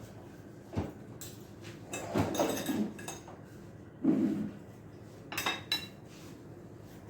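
Dishes and cutlery clinking and clattering in scattered, irregular knocks, with a busier stretch in the middle and a few ringing clinks toward the end.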